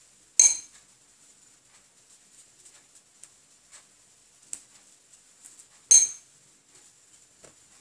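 Paintbrush clinking against a glass bowl of watercolour water, twice: once about half a second in and again near six seconds, each clink ringing briefly. Faint small ticks of the brush and swabs between.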